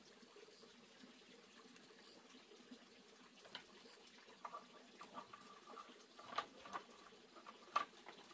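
Faint clicks, knocks and short squeaks as a black electrical cable is handled and pressed against a woven bamboo wall and its eaves, over a faint steady hiss. The knocks begin about halfway through, and the sharpest comes near the end.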